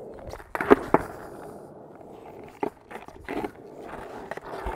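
Freestyle skateboard wheels rolling on a rough car-park surface. About three-quarters of a second in come two sharp clacks of the board in quick succession, the pop and landing of a kickflip trick. Lighter knocks follow as the board rolls away.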